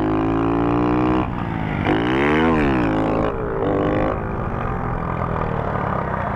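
Small moped engine revving hard in first gear through a wheelie. The pitch climbs, drops, then rises and falls again a couple of times, and the note turns rougher after about four seconds.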